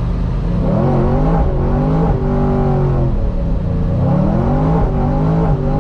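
Supercharged 6.2-litre V8 of a 2010 Chevrolet Camaro SS accelerating hard from a launch. The engine note climbs, drops at a gear change about two seconds in, then climbs again and drops at another shift near the end.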